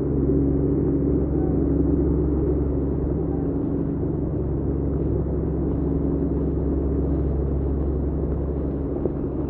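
Muddy floodwater rushing in a torrent down a street, a steady low roar, with a steady low hum running under it.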